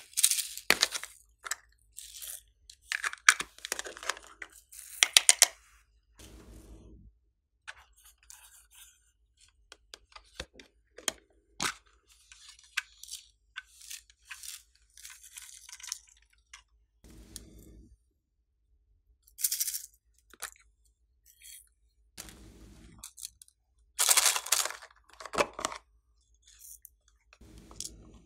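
Hands handling small plastic toy cases over a tray of slime: irregular plastic clicks and taps, with crackling rustles of glitter and sequins being tipped out. The loudest bursts come right at the start and again about 24 seconds in, with quiet gaps between.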